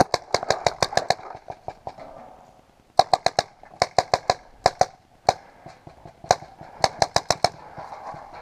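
Paintball markers firing in rapid strings of sharp pops, several bursts of about eight to ten shots a second with short pauses between.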